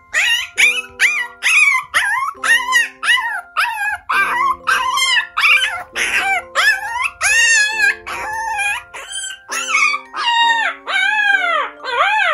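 Micro teacup toy poodle giving a quick series of high-pitched whining yips, roughly two a second, each call rising then falling in pitch. Soft background music plays under them.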